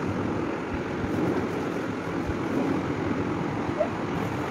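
Steady rushing background noise, even and unchanging, with no clear strokes or beats.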